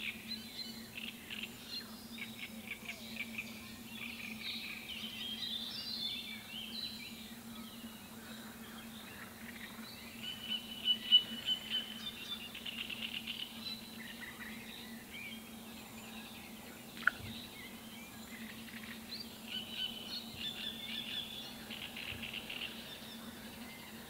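Wild birds calling and singing around a pond, many short chirps and trills overlapping, with the loudest calls about halfway through, over a steady low hum. A single sharp click sounds later on.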